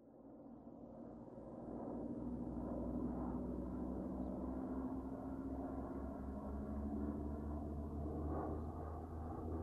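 Low, steady mechanical drone with a regular throb and a sustained hum, fading in over the first two seconds.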